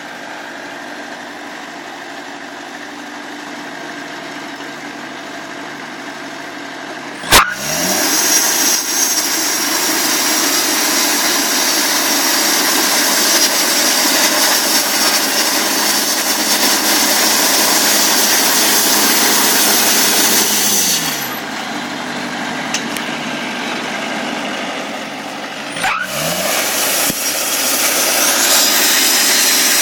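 Portable sawmill's engine idling, then throttled up after a sharp click about a quarter of the way in and running loud at high speed. It drops back with a falling pitch about two-thirds in, then revs up again after another click near the end.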